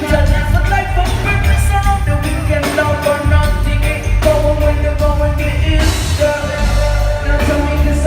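Live band playing a song with a lead singer over heavy bass and drums.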